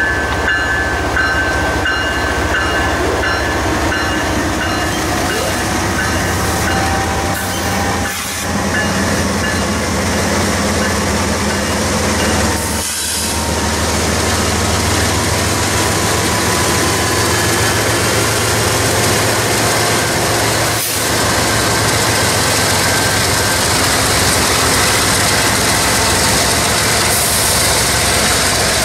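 Norfolk Southern GE diesel freight locomotives passing close by, engines running with a steady low rumble under continuous wheel and rail noise. A repeating high ringing tone sounds in the first few seconds.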